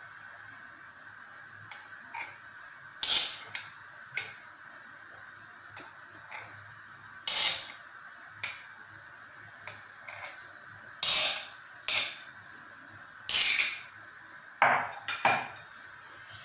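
A metal spoon clinking and scraping against a pot and glasses as thick lemon pudding is spooned into serving glasses: about a dozen separate clinks, with a few longer scrapes.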